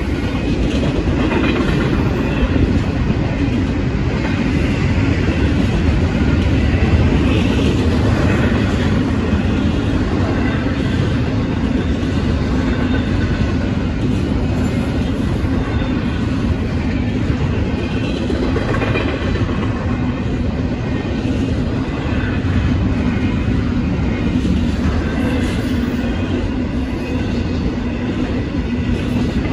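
Union Pacific intermodal stack train's double-stack container cars and trailer flatcars rolling through a grade crossing. The wheels make a steady rumble on the rails, with repeated clicks as they pass over the crossing.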